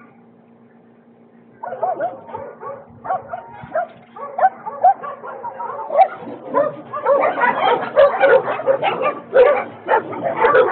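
Several dogs barking and yipping in quick, overlapping bursts, starting about a second and a half in and growing louder and denser after about six seconds, as loose street dogs rush at people at a gate.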